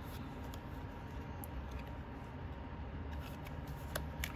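A few faint, light clicks and rustles of tarot cards or guidebook pages being handled, over a steady low room hum.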